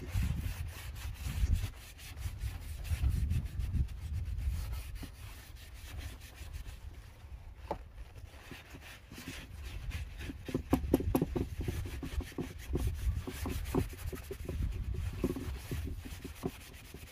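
Cloth rag rubbing and wiping stain over a carved wooden bowl, in repeated scratchy strokes that pick up about halfway through, over a low rumble.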